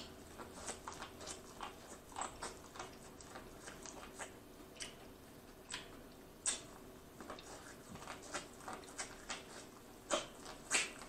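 Close-up sounds of eating corn on the cob: biting kernels off the cob and chewing, heard as quick irregular crisp clicks and wet mouth smacks, a few a second.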